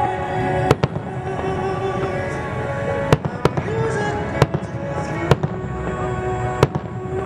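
Fireworks shells bursting in sharp bangs, about six of them at uneven intervals, over steady background music.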